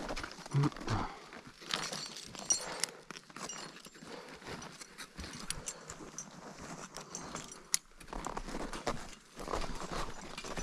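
Crampon footsteps crunching and scraping on snow and ice in an uneven walking rhythm, with metal climbing hardware on the harness and fixed rope clinking now and then.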